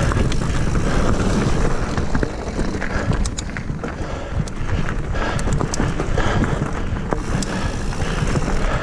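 Mountain bike ridden along a dirt singletrack trail: steady low wind rumble on the microphone, with tyre noise and frequent rattling clicks from the bike over rough ground.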